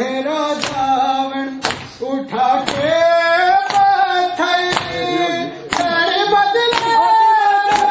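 Voices singing a Punjabi noha, with hands slapping on bare chests in matam at a steady beat of about one slap a second.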